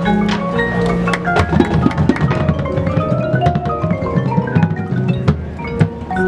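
High school marching band playing, with sharp percussion strikes and mallet-percussion notes over sustained band chords and a low bass line.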